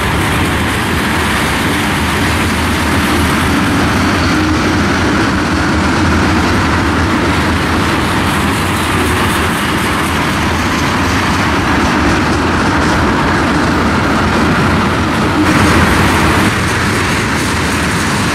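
Freight train passing close by: the steady rolling noise of its cars' wheels on the rails.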